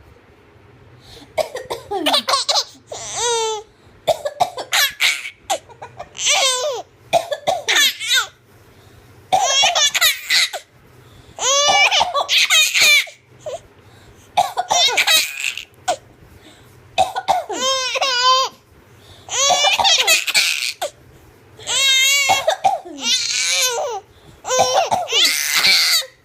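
A woman coughing in short, deliberate bursts, each answered by a baby's high-pitched laughter. The cough-then-laugh exchange repeats about ten times, one round every two to three seconds, with brief pauses between.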